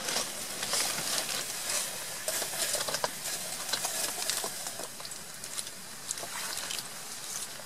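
Open campfire of logs and coal burning hard, with a steady hiss and many small crackles and pops.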